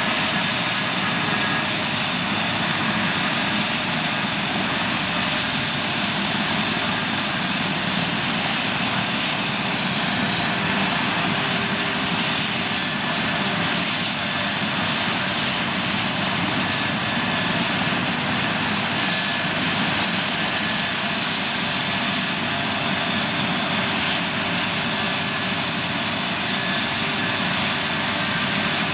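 Eurocopter AS 365 Dauphin helicopter running on the ground with its main rotor turning: a steady turbine whine with high, even tones over the rush of the rotor, holding at one level.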